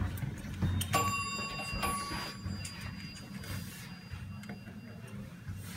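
Elevator car: a click and a bell-like ding about a second in, then a second ding just under a second later, each ringing on briefly, over the steady low hum of the car. A few faint button clicks follow.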